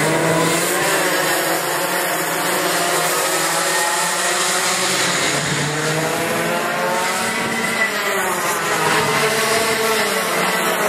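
A pack of racing kart engines running together at several pitches, each rising and falling as the karts accelerate, lift and pass by.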